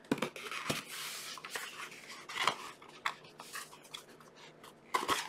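Cardboard mailer box being handled and opened by hand: scratchy rustling and scraping of the cardboard, with several sharp clicks and knocks as the flaps and lid are worked loose.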